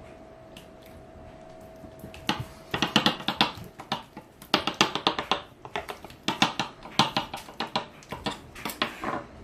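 Sharp knife chopping Jello into thin slices: a fast, irregular run of sharp taps that starts about two seconds in, after a faint steady hum.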